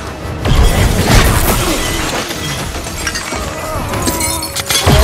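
Action-film fight sound effects: heavy crashes and glass shattering, with a cluster of sharp smashes near the end as a body goes through a glass panel, over film score music.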